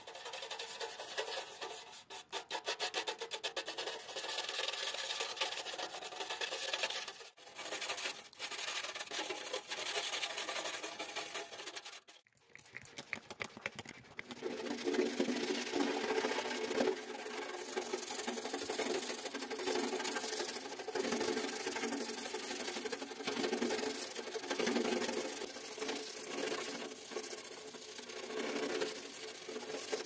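Small stiff-bristled brush scrubbing the painted sheet-metal casing of an old electric heater in quick back-and-forth strokes. There is a short pause about twelve seconds in before the scrubbing resumes.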